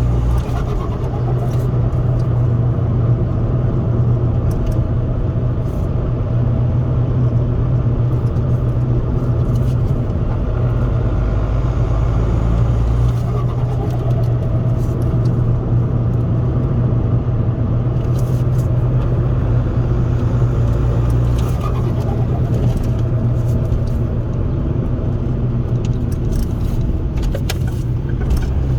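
Ford Focus 1.8 TDCi four-cylinder turbodiesel heard from inside the cabin while driving, a steady low engine drone mixed with road noise, with small shifts in pitch as the revs change.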